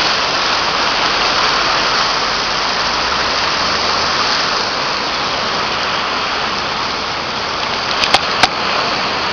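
Fast floodwater of a swollen river rushing, a steady loud noise of water. A few sharp clicks about eight seconds in.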